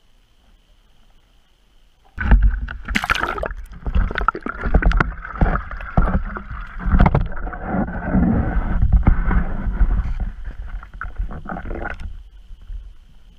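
Underwater camera being moved and lowered on its line: a jumble of knocks, bumps and water sloshing against the housing, starting about two seconds in and stopping about a second and a half before the end.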